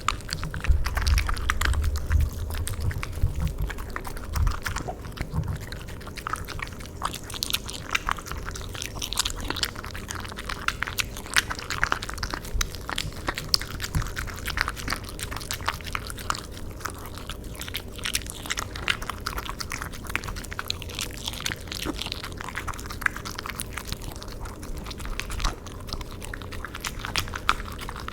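A dog eating cream pasta: steady chewing and biting with a rapid, irregular run of small wet mouth clicks.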